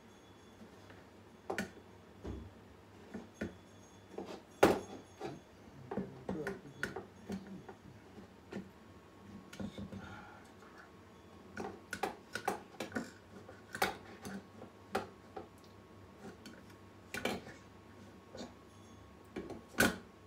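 Irregular light clicks and taps of hands and a thin wooden strip against a wooden model boat hull on a workbench, with one sharper knock about four and a half seconds in.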